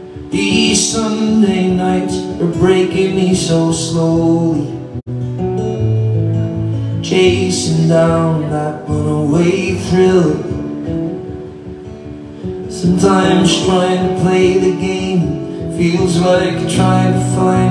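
Live acoustic music: two acoustic guitars strummed, with a voice singing over them.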